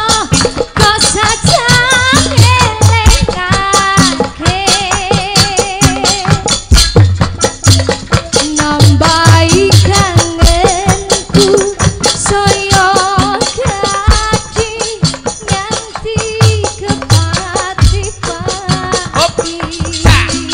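Live Javanese band music: a woman singing a wavering melody with vibrato over a fast, steady percussion beat and deep drum thumps.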